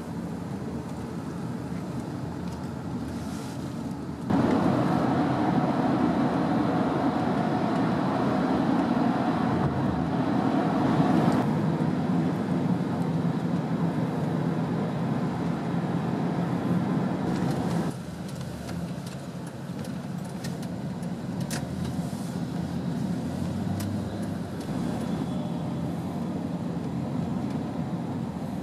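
Steady road and engine noise inside a moving car. The rumble jumps louder about four seconds in and drops back again after about eighteen seconds.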